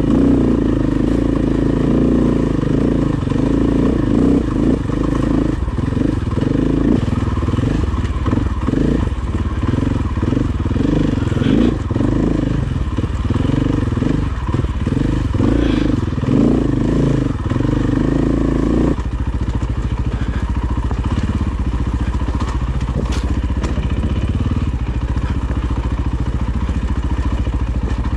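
Off-road dirt bike engine running under load, its note rising and falling with the throttle, with a few sharp knocks. About two-thirds of the way through the sound changes abruptly to a steadier engine note.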